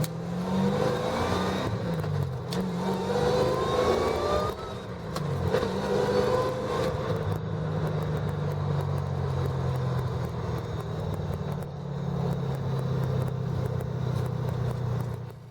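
A supercharged 5.4-litre Ford Lightning V8 in a car accelerating. The engine's pitch climbs and drops back several times as it shifts up through the gears, then it settles to a steady cruise about halfway through.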